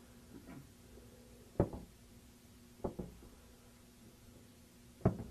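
Sneakered feet stepping and stamping on a carpeted floor during a footwork drill: three short thuds, the first about a second and a half in and the last near the end.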